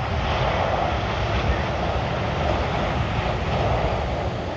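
Steady jet roar of a Boeing 777-300ER's twin GE90 turbofans as the airliner passes low on final approach.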